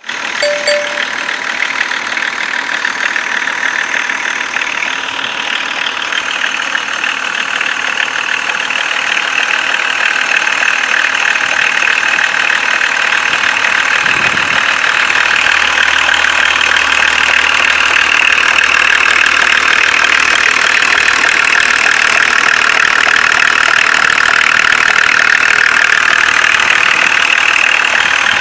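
BMW M51 2.5-litre inline-six turbodiesel running, with a rapid, even knock over the engine noise. The owner says this knock is almost absent when the engine is cold, appears as it warms up, quickens with revs and fades out above 2000 rpm, and its cause is not yet known.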